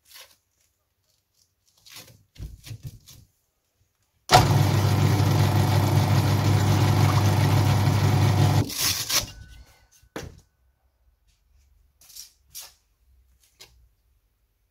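Bench drill press switched on, its motor running steadily for about four seconds with a sanding backing pad in the chuck, then switched off and winding down. Short rustles and clicks from handling sanding discs come before and after.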